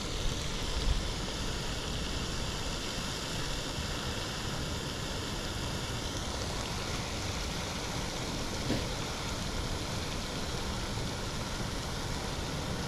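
Steady splashing hiss of a pond's spray fountain. A faint high steady tone sounds for a few seconds in the first half, and a brief click comes about nine seconds in.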